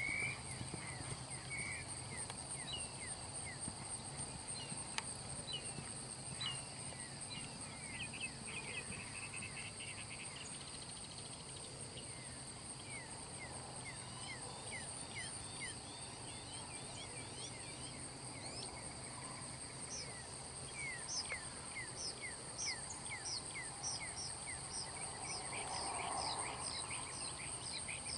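Insects trilling steadily at two high pitches, with many short, high, falling chirps repeating through it, some in quick runs.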